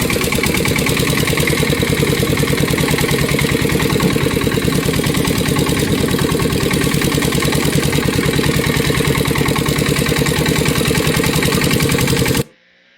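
An engine idling steadily and loudly with rapid, even firing pulses, cutting off abruptly near the end.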